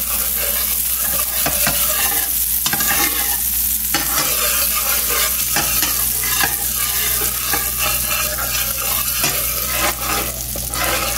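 Butter sizzling and crackling as it melts in a hot nonstick frying pan, with a spatula pushed around the pan through it.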